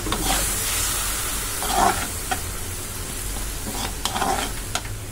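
Mutton and onion masala sizzling in a non-stick kadai with a splash of water just added, while a perforated steel ladle stirs and scrapes through it. There are two louder scrapes and a few light ticks of the ladle against the pan.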